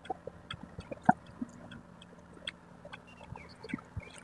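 Faint, scattered crackles and ticks of a car tyre rolling slowly over wet, gritty asphalt toward a plastic packet, with a sharper tick about a second in and another about two and a half seconds in.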